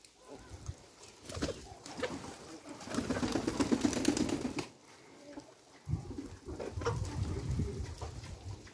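Domestic pigeons cooing in a low murmur, with scattered short clicks and taps from birds pecking grain on the ground.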